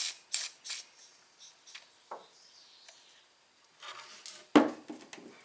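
Light clicks, taps and scrapes of hands handling the push mower's recoil starter parts, with one louder knock about four and a half seconds in.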